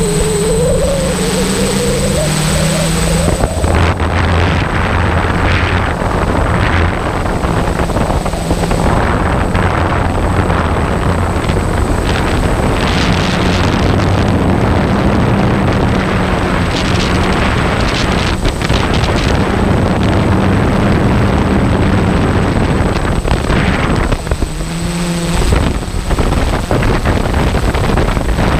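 An engine running steadily under a constant rushing noise, its low hum drifting slightly in pitch.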